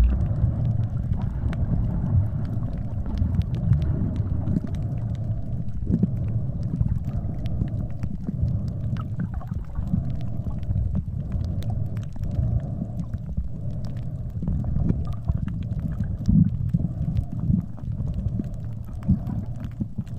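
Underwater ambience picked up by a camera below the surface: a steady low rumble of water noise with scattered faint clicks.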